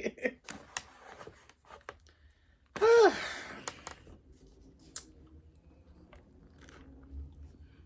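Close-up eating sounds: soft chewing with small wet mouth clicks and smacks, broken by one short voiced sound with a falling pitch about three seconds in.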